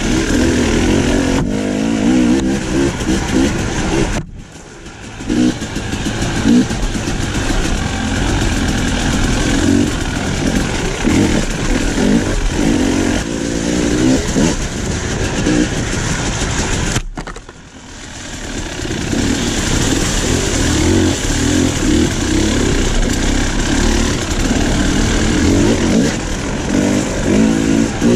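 Dirt bike engine being ridden on a trail, revving up and down continually with the throttle. The sound falls away abruptly twice, about four seconds in and again past halfway, before picking back up.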